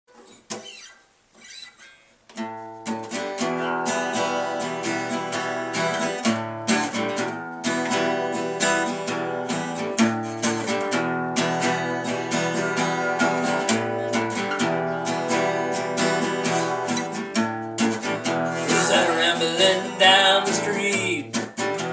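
Acoustic guitar strummed in steady chords as a song's intro, starting about two seconds in after a few faint sounds. A man's singing voice comes in near the end.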